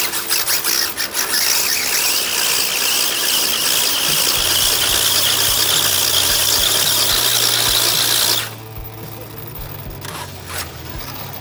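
Radio-controlled car doing a burnout on asphalt. After a few short throttle blips, its tyres spin and squeal under a motor whine that climbs slowly in pitch, then the sound cuts off suddenly about eight seconds in.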